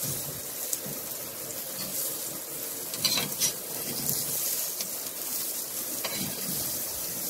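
Salmon steaks sizzling on a charcoal grill: a steady hiss with a few faint crackles.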